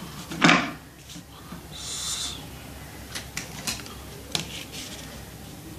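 Drafting instruments handled on drawing paper: a short loud scrape about half a second in, a brief rustling slide near two seconds, then a run of light clicks and taps.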